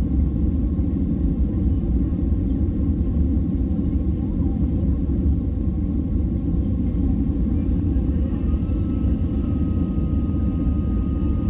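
Steady low rumble of a Boeing 767-300's engines and rushing air, heard inside the passenger cabin as the jet climbs after takeoff.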